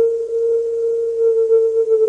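Emergency warning alarm tone: a single pitched tone with fainter overtones, held steady and beginning to slide slowly lower near the end.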